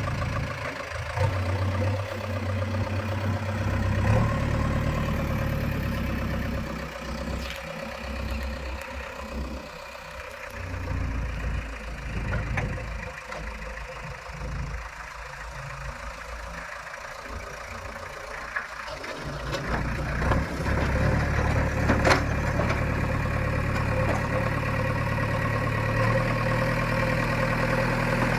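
Diesel engine of a JCB 3DX backhoe loader running steadily. It is quieter through the middle and comes up again after about twenty seconds, with a few sharp knocks.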